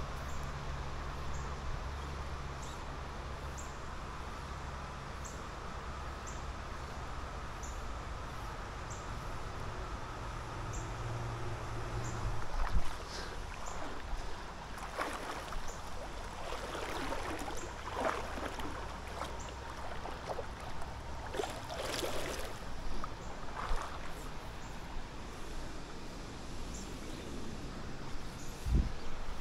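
River water flowing and splashing around a wading fly angler, with a low rumble in the first half that stops partway through and a couple of sharp knocks. A faint insect ticks at a steady rate, about once a second, in the background.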